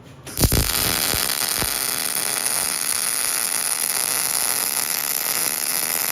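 Electric arc welding on a steel PTO yoke: the arc strikes with a few pops about half a second in, then runs as a steady hiss.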